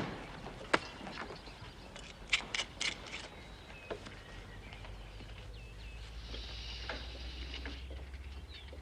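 Quiet outdoor ambience with faint bird-like chirps and a few sharp clicks, joined by a low hum and a high steady buzz in the second half.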